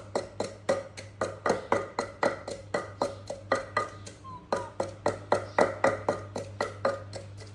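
Wooden pestle pounding in a clay mortar: regular knocking strokes, about three a second, each with a short hollow ring.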